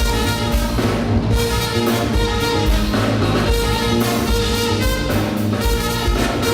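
Live funk instrumental played by a band: saxophone and trumpet horn lines held over a steady drum-kit groove with bass and keyboards.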